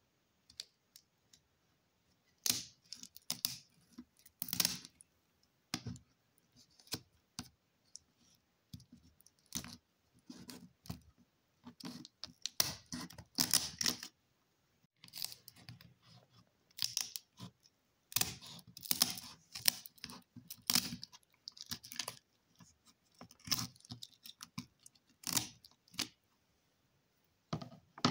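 Kitchen shears snipping and cracking through the shell of raw spiny lobster tails: a run of irregular clicks and crunches in short clusters, with brief pauses between cuts.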